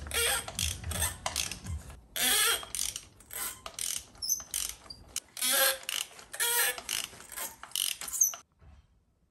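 A ratchet clicking on a spark plug socket as a spark plug is turned in its well on the engine head, in several short, irregular spells.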